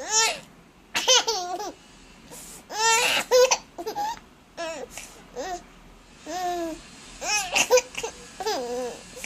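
A baby laughing and squealing in about ten short, high-pitched bursts that bend up and down in pitch.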